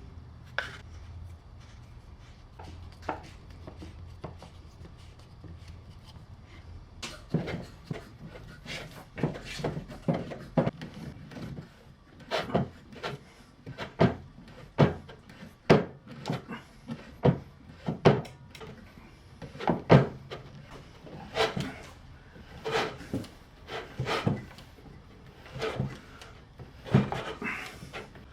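Homemade maple-and-steel bar clamp being screwed down on a wooden board in a strength test. About seven seconds in, a run of sharp wooden clicks and cracks starts and comes about once a second as the clamp and board take the strain.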